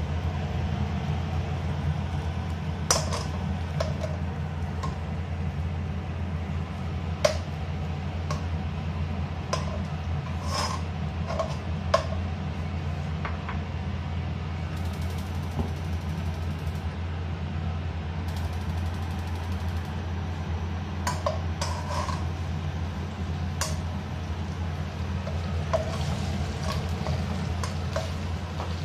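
A metal ladle clinking and knocking against a wok now and then as food is stirred in oil, over a steady low hum.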